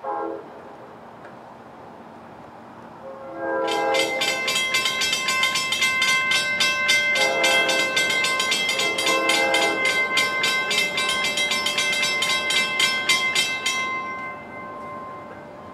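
Approaching NJ Transit train: the Multilevel cab car's K5LA air horn gives a brief toot, then three longer blasts over its rapidly ringing bell, about four or five strokes a second. The bell starts about four seconds in and stops near the end.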